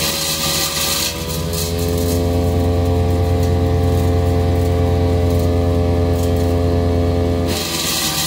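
Big Bear Power BBC-62 wood chipper running and chipping wood: a steady engine tone with irregular crackling. The engine pitch sags briefly near the start and again near the end.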